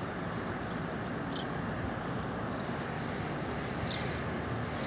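Steady low engine rumble of a small pickup-based dump truck running close by, with a few faint high chirps from birds.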